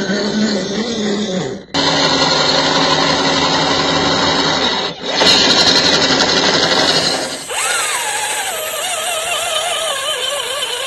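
The electric motor and drivetrain of an MN 86K RC truck whining, the pitch wavering up and down as the throttle is worked while the wheels churn through mud and water. The sound breaks off sharply twice and resumes.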